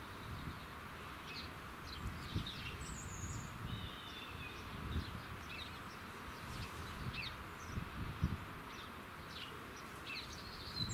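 Small birds chirping and calling, short calls scattered all through, over a low, uneven rumble and a steady outdoor hiss.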